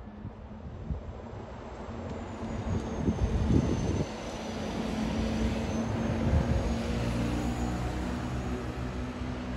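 Setra low-entry city bus engine running as the bus drives past close by, loudest about three to four seconds in, with a faint high whine dipping and rising above it. The sound drops abruptly about four seconds in to a steadier engine sound as a bus pulls away at a distance.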